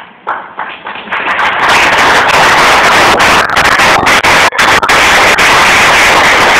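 Audience applause: clapping breaks out just after the start and within about a second and a half swells into very loud, dense applause that stays at that level.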